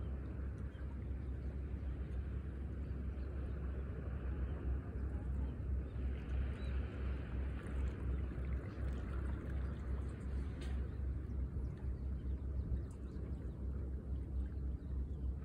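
Wind buffeting the microphone with a steady, fluttering low rumble, over a soft wash of small waves lapping against concrete breakwater blocks.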